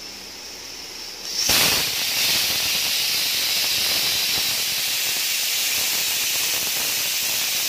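Aluminium stovetop pressure cooker letting off steam through its weight valve: a faint hiss, then about a second and a half in a loud, steady jet of steam starts and keeps going. This is the cooker's 'whistle', the weight lifting once the pressure inside has built up.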